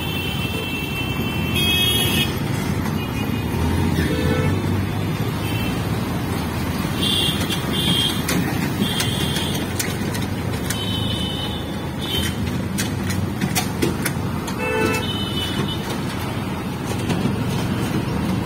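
Moving city traffic heard from inside an open-sided auto-rickshaw: a steady engine and road rumble, with short horn honks from surrounding vehicles several times.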